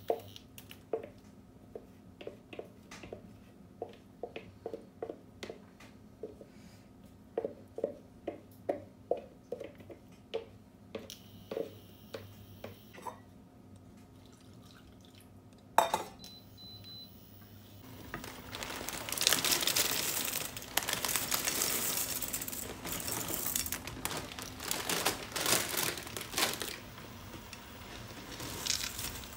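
A spoon tapping and scraping thick carrot purée out of a plastic blender jug into a frying pan, in a run of light knocks about twice a second. One sharper knock comes about 16 s in. From about 18 s a louder, uneven hissing and crackling comes from the pan.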